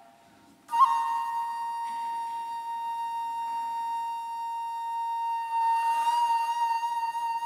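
Korean traditional flute music: after a brief near silence, a single long high note starts about a second in and is held steady, wavering slightly near the end.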